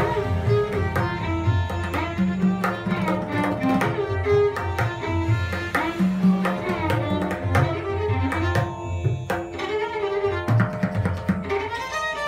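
Tabla and violin playing Hindustani classical music, raag Jaijaiwanti. The tabla keeps a dense, continuous run of strokes with deep bayan bass notes under the bowed violin melody.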